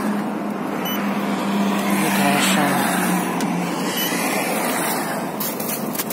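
Steady motor-vehicle noise, a continuous hum like nearby traffic or an engine running. About a second in there is a short high electronic beep from the paint-thickness gauge taking a reading.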